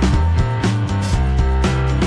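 Background music with a series of plucked-sounding notes.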